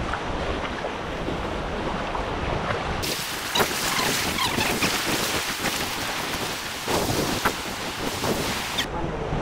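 Surf washing onto a sandy beach, mixed with wind buffeting the microphone. The hiss turns brighter about three seconds in and dulls again near the end.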